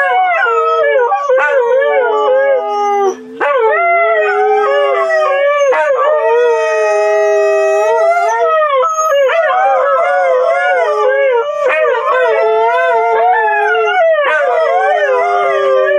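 Several Siberian huskies howling together, long wavering howls overlapping at different pitches, with a brief break about three seconds in.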